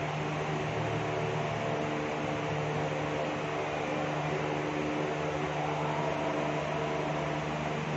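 Steady mechanical hum with a constant drone and hiss, unchanging throughout.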